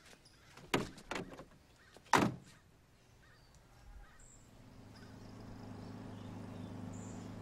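Vintage sedan's door handled and then slammed shut about two seconds in, the slam being the loudest sound, followed by the car's engine running with a low steady hum that swells from about four seconds in.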